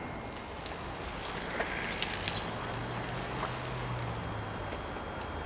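Steady outdoor background rumble with no train passing. A low engine-like hum swells for a second or two in the middle, and a few faint clicks come about one and a half to two and a half seconds in.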